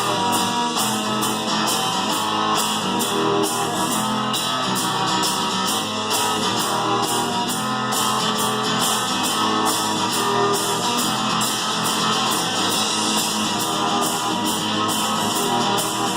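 Acoustic band playing live: strummed guitar with cajon and cymbal percussion keeping a steady beat, about two or three hits a second, in an instrumental passage.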